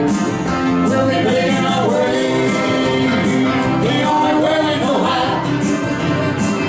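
Live country band playing, with a man singing lead over acoustic guitars and fiddle.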